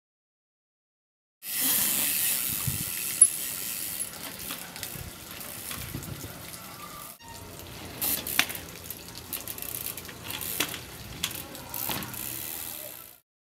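Steady rushing, hissing background noise with a few sharp knocks, typical of a street-trials bicycle's tyres and frame hitting concrete. It starts about a second and a half in, breaks off for a moment near the middle, and stops shortly before the end.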